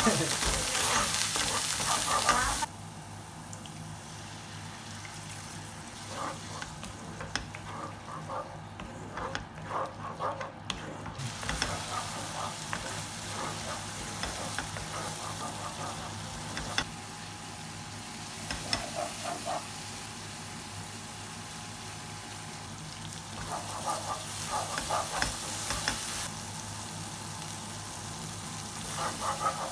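Fish and eggplant curry frying in a pan. A loud sizzle for the first couple of seconds drops suddenly to a quieter sizzle, broken by scattered scrapes and clicks of stirring.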